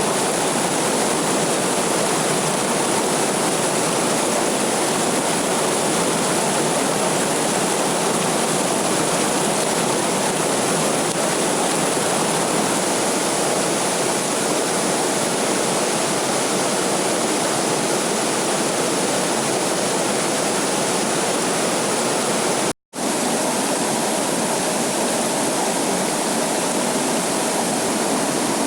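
Waterfall rushing: a steady, even roar of falling water that cuts out for an instant about 23 seconds in, then carries on.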